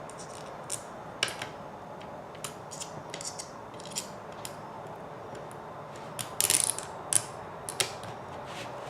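Light clicks and taps of small hard RC kit parts and hardware being handled during assembly, with a short rattling clatter about six seconds in and two sharp clicks just after it.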